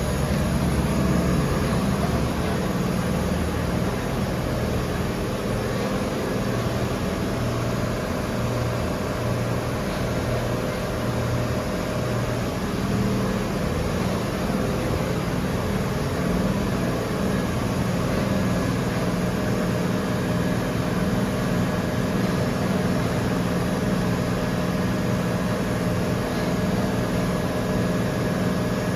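Micron VCP 710 CNC vertical machining centre running: a steady machine hum with several tones that shift to new pitches every several seconds.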